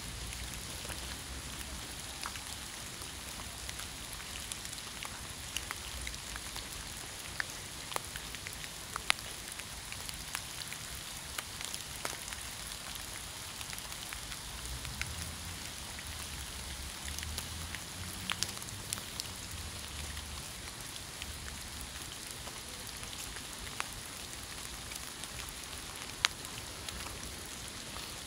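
Steady rain falling on a wet path and leaves: an even hiss with scattered sharp ticks of single drops landing.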